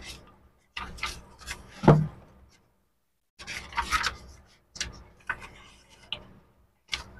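Paper pages of a thick bound book being turned by hand: a series of short papery rustles and flips, with a brief pause in the middle.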